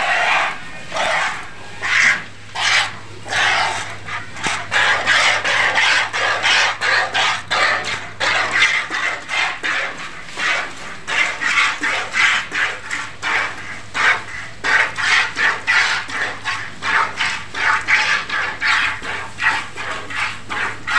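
Milk squirting from a cow's teats into a plastic bucket during hand-milking, a steady rhythm of short hissing squirts, about two a second.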